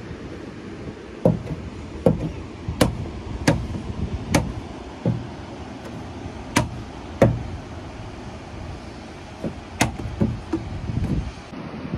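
A series of about a dozen sharp knocks or taps, irregularly spaced roughly half a second to a second apart with a couple of longer pauses, over a steady low rumble.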